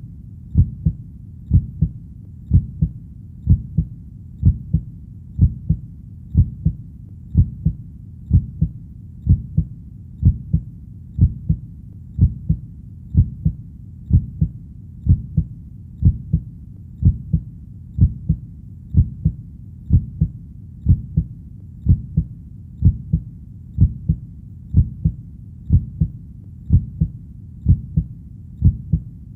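Heartbeat: a steady double thump (lub-dub), about once a second, over a low steady rumble.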